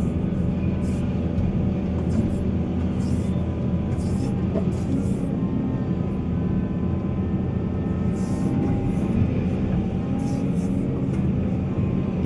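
Heavy diesel earthmoving machinery running steadily at a mine site, a deep engine drone with a faint higher whine over it.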